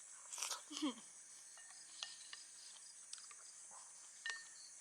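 Steady high chirring of crickets in the background, with a few faint clicks of a spoon against the dessert container and a brief low murmur about a second in.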